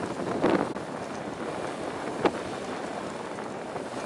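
Wind buffeting the microphone in uneven gusts, with one short sharp click a little over two seconds in.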